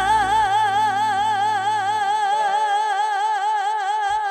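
A female singer holding the song's long final note into a microphone with a wide, even vibrato. The band's bass and drums drop away about two seconds in, leaving the voice over a soft held chord, and the note stops at the very end.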